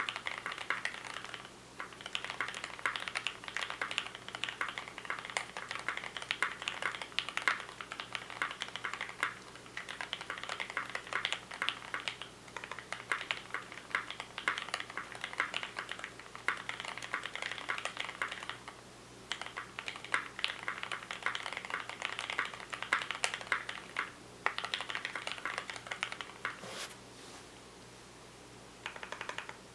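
Custom 60% mechanical keyboard with Gateron Black linear switches on a brass plate and ePBT keycaps, typed on quickly in long runs of keystrokes. Typing breaks off briefly about 19 and 24 seconds in, and there is a longer pause near the end.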